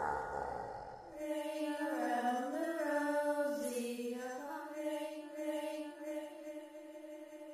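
Drum-machine music fades out in the first second, then a voice sings a quiet, wordless, drawn-out line that glides slowly down and back up before settling on one long held note that fades away.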